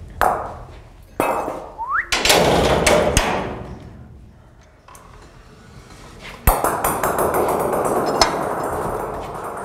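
A hard toy ball being pushed through the bars of a big-cat enclosure and rolling across the floor: several knocks and clanks against metal, then a sharp clank about two-thirds in followed by a steady rolling rumble.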